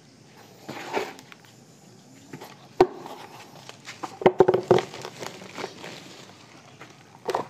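Woven plastic sack crinkling and rustling as hands dig into it and scoop out its contents. A sharp knock nearly three seconds in, a quick run of knocks and clatters past the four-second mark, and one more knock near the end.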